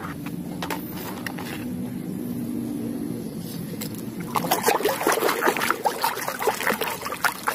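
Water sloshing and splashing in a plastic tub as a muddy mask is pressed and swished in it by hand, starting about four seconds in and turning busy and irregular. Before that, only a low steady hum.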